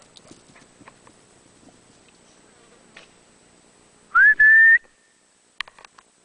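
A whistle blown hard close by, about four seconds in: a short rising note, a brief break, then a held steady note of about half a second. A few sharp clicks follow about a second later.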